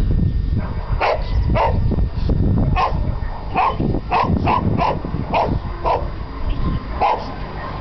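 A herding dog barking repeatedly while working sheep: about eleven short, sharp barks at an uneven pace, sometimes two or three in quick succession.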